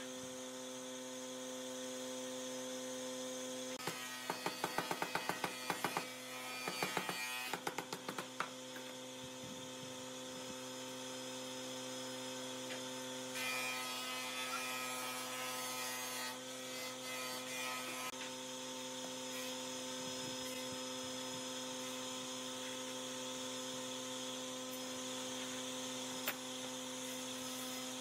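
Quick-release bar clamps being ratcheted tight onto laminated wood strips: two quick runs of sharp clicks a few seconds in, then softer handling of clamps and wood. A steady electrical hum runs underneath.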